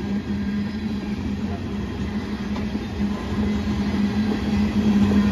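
Freight cars of a coal train rolling past, a steady low rumble with a constant hum and some clickety-clack of wheels over rail joints, growing a little louder near the end.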